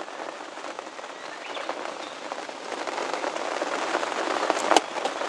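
Steady rain falling, dense drops striking close by, growing louder from about three seconds in. A couple of sharp clicks come near the end.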